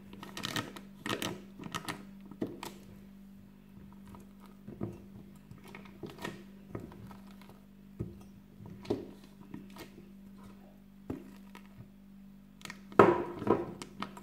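Silicone spatula scooping thick whipped ice-cream mix from metal saucepans and scraping it into a plastic piping bag, with irregular soft knocks against the pans and the glass and rustles of the plastic bag. There is a louder cluster of knocks about thirteen seconds in, over a faint steady low hum.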